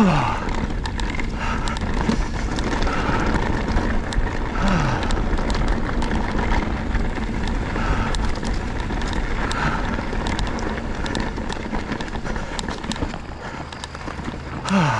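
Ibis Ripmo V2 mountain bike rolling over a rocky trail: steady tyre and wind noise with frequent sharp rattling clicks, getting a little quieter near the end.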